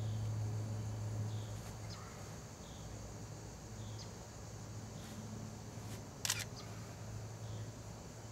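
A single sharp click, followed at once by a fainter tick, about six seconds in, over a steady low hum.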